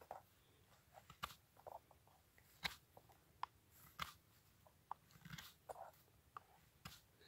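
Benchmade Puukko knife shaving wood off a stick in a chest lever cut: about a dozen faint, short scrapes and snicks at irregular intervals as the blade takes off chunks.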